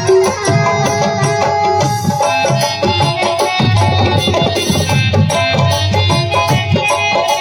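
An Indian music group playing through its sound system at a sound check: quick, steady hand-drum strokes over sustained melodic tones.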